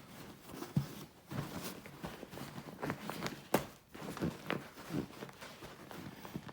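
Irregular taps, knocks and rustling as a rubber mask and its wig are handled and pressed together while hot glue sets. The sharpest knock comes about three and a half seconds in.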